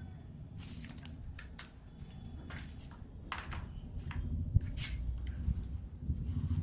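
Rustling and short crackles of a phone's retail box and its packaging being handled as accessories are taken out, over a low steady hum.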